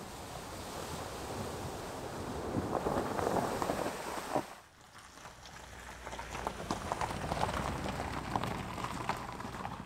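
A Toyota RAV4 Prime plug-in hybrid crossover drives through a muddy puddle, its tyres throwing up water in a rushing splash that swells and then cuts off abruptly about four and a half seconds in. It then rolls along a gravel track, with tyres crunching and crackling on the stones over a low steady hum.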